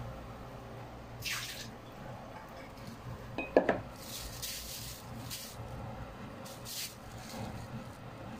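Kitchen sink work: short splashes of running water, and one loud ringing clink of dishware about three and a half seconds in.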